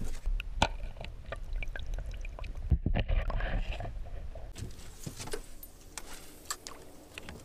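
Lake water sloshing and splashing, with a low rumble for the first few seconds and scattered knocks and clicks throughout.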